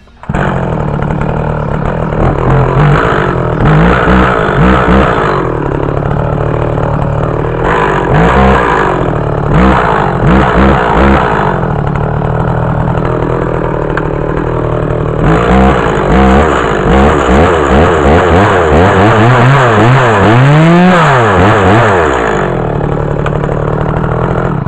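Two-stroke chainsaw engine running, settling at idle between repeated blips of the throttle that rise and fall in pitch, with a longer run of quick revs in the second half.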